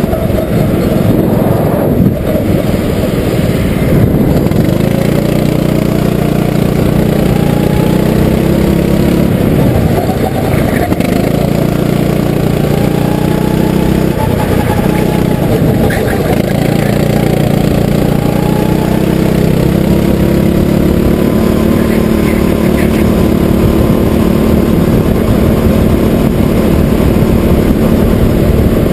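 RiMO go-kart's engine heard from on board, running hard for the whole lap section, its pitch rising and falling as the kart accelerates out of corners and eases off into them.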